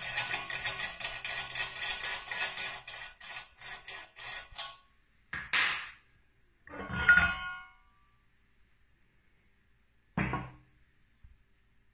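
Steel bottle-cage lock being worked by hand: a fast run of metallic clicks and rattles as its threaded rod is turned, dying away about five seconds in. Then three separate metal clunks, the middle one with a short ringing clink.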